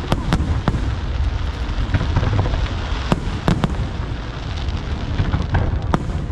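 Fireworks display: aerial shells bursting with a steady low rumble and many sharp cracks scattered throughout.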